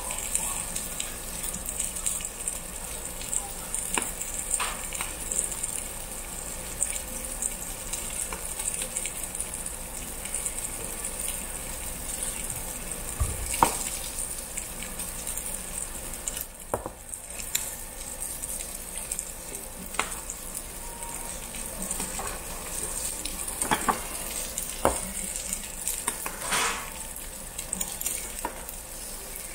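Thick slabs of pork belly sizzling on a charcoal-heated grill plate: a steady hiss with occasional sharp pops.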